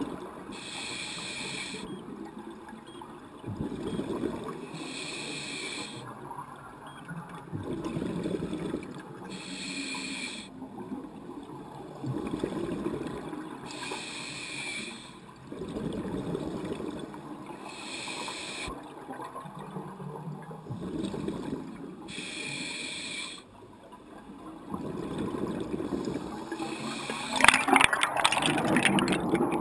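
Scuba regulator breathing heard underwater: a short hiss of air on each inhale, then a low burble of exhaust bubbles on each exhale, repeating about every four seconds. Near the end, a louder rush of bubbles.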